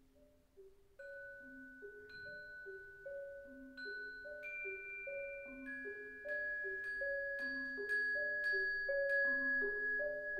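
Marimba playing a repeating figure of low notes, with long-ringing, bell-like high notes from a second mallet instrument entering one by one above it. The music grows steadily louder.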